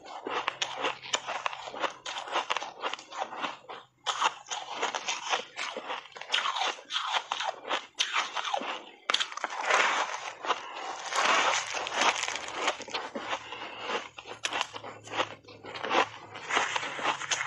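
Close-miked biting and chewing of a refrozen ice block coated in matcha powder: continuous, irregular crunching and crackling, with a brief lull about four seconds in.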